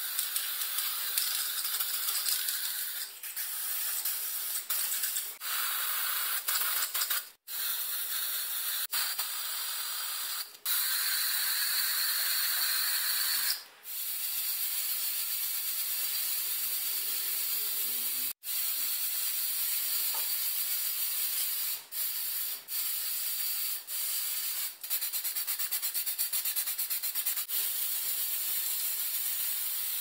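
Spray paint hissing from a spray nozzle, stopping and restarting several times.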